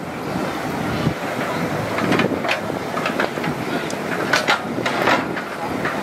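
Dump truck tipping out a load of rocky soil: rocks and clods tumbling from the bed with many irregular knocks and clatters over a steady rumble of machinery.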